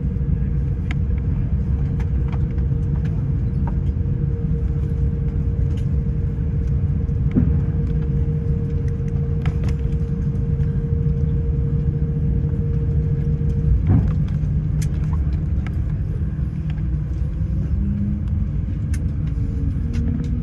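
Airbus A350-1000 cabin noise as the airliner rolls on the ground after landing: a steady low rumble under a constant hum, with a few faint clicks. The hum stops with a knock about 14 seconds in.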